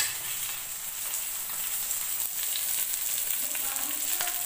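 Fish steaks shallow-frying in oil on a black iron tawa, a steady sizzle with fine crackling.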